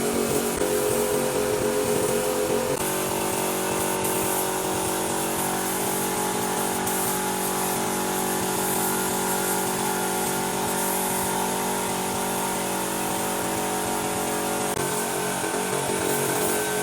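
An electric power tool's motor running steadily, its pitch shifting about three seconds in and again near the end.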